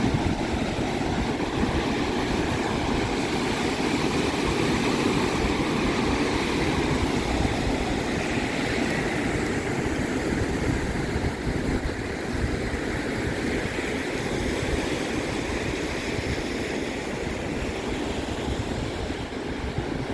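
Big Lake Michigan waves breaking on the shore: a continuous rush of surf with a low, steady rumble underneath.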